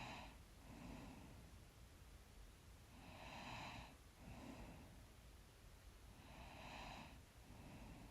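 Faint, slow breathing of a sleeping person close to the microphone. A longer breath is followed by a shorter one, the pair repeating evenly about every three seconds.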